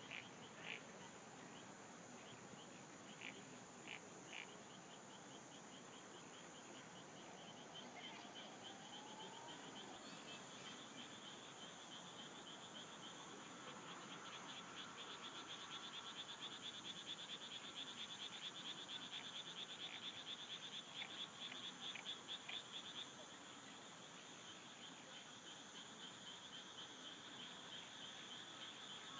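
Faint chorus of frogs and insects: a steady high insect buzz with a rapid pulsing trill that grows louder about halfway through, and a few short separate calls in the first few seconds.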